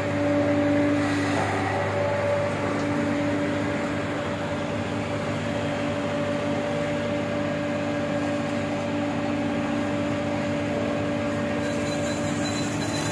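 Silage baling machine running, a steady mechanical hum with an even tone held throughout.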